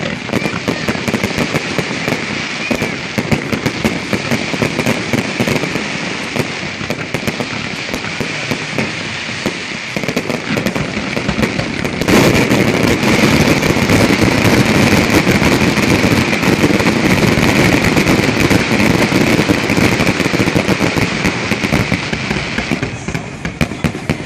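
Fireworks display: a dense, unbroken run of rapid pops and bangs from many bursting shells and fountains, which gets louder about halfway through.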